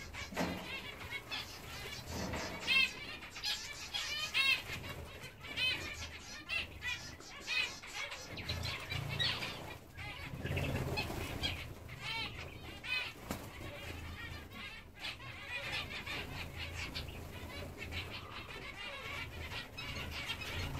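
Zebra finches calling over and over, a busy stream of short, arching chirps, with some wing flutter.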